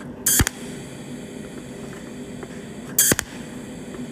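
Cold welding machine's pulsed TIG-style torch firing two brief spot-weld pulses about three seconds apart, each a short, sharp crackle, tacking a screw head in place.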